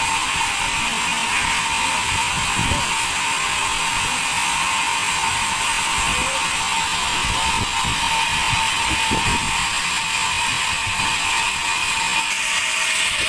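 Sawmill band saw running with a steady, high-pitched hiss and a constant whine, with scattered low knocks underneath.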